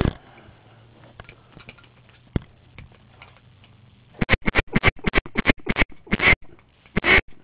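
Rapid run of loud duck quacks, about four a second, starting about four seconds in after a quiet stretch with a few faint clicks.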